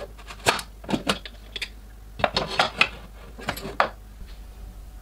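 Metal clanks and clicks as a pressure cooker's lid is turned, unlocked and lifted off the pot, in short groups about half a second, one second, two to three seconds and three and a half seconds in.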